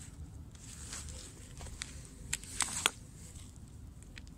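Scattered light clicks and taps, most of them bunched together between two and three seconds in, over a steady low rumble.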